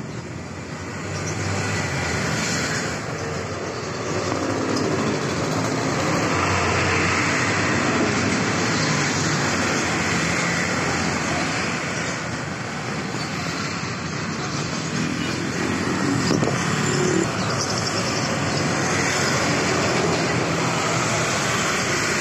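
Road traffic noise: a steady rush of vehicles passing, swelling and easing over several seconds.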